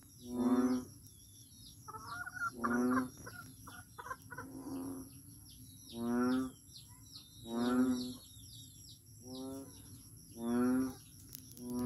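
A frog calling: a low, droning croak about half a second long, repeated about every second and a half, about seven times. Birds chirp and an insect keeps up a steady high whine behind it.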